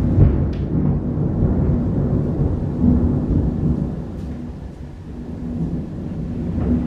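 Rolling thunder over heavy rain during a monsoon thunderstorm. The low rumble is loudest in the first few seconds, eases off midway, then swells again near the end.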